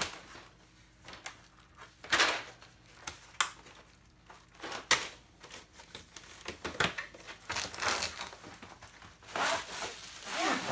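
Cardboard box being opened and handled by hand: short, irregular bursts of cardboard scraping and rustling as the box is turned and its flap worked open.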